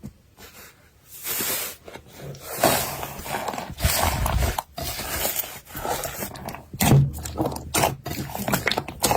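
Slime being squeezed, poked and stretched by hand: irregular squishes, pops and clicks, starting about a second in, with heavier squashes around the middle and again near the end.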